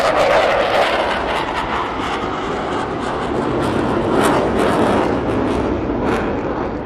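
A CF-18 Hornet's twin F404 jet engines in a flyby: a loud, crackling jet noise whose pitch sinks slightly as it slowly fades.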